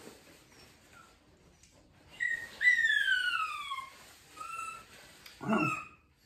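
A dog whining as it begs for food. A short whine comes first, then a loud, long whine that falls in pitch, followed by a few shorter whines near the end.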